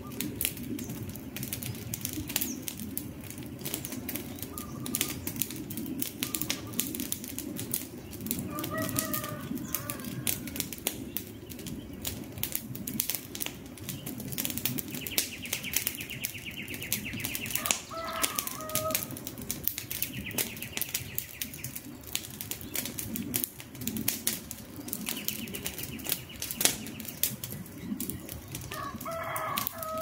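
Wood campfire crackling and popping with many sharp snaps. A bird calls briefly three times: about a third of the way in, just past the middle, and near the end.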